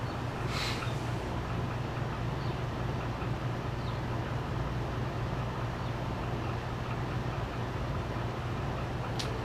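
A steady low hum over constant background noise, typical of distant traffic or a running machine, with a brief hiss-like sound about half a second in and a single sharp click near the end.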